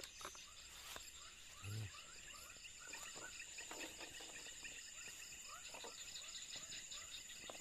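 Night chorus of crickets and other insects: a steady high buzz and fast pulsed chirping, with frogs giving short upward-sliding calls throughout. A brief low hum sounds about two seconds in.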